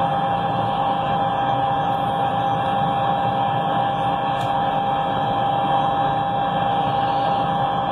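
Steady machine hum with a constant tone running through it, unchanging throughout.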